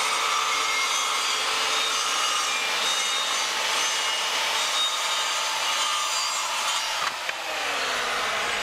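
Handheld electric circular saw cutting through a thick sheet of HDPE plastic: a loud, steady cutting noise. About seven seconds in the blade clears the end of the sheet and the sound changes, with a falling tone.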